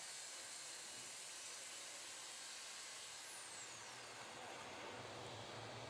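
Faint steady hiss of background noise, with no saw or other event; the hiss turns duller about three seconds in as its high end falls away.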